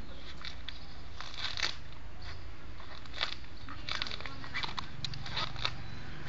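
A husky biting and gnawing at a coconut: irregular crunches and cracks, a dozen or so spread unevenly, over a steady low hum.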